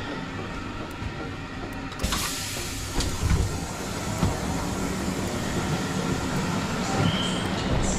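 A train carriage's exterior door opening onto a station platform: a sudden rush of hiss about two seconds in, a few knocks, then steady station noise with a short high beep near the end.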